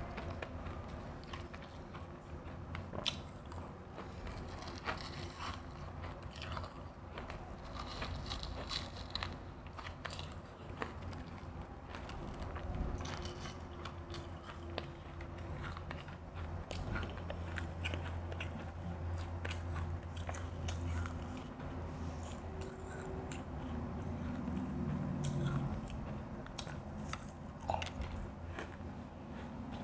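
Refrozen crushed ice being bitten and chewed close up: a steady run of sharp, irregular crunches.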